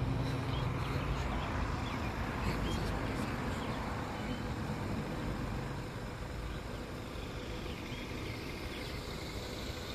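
Road traffic: a steady hum of passing cars that slowly grows quieter, with a few faint bird chirps.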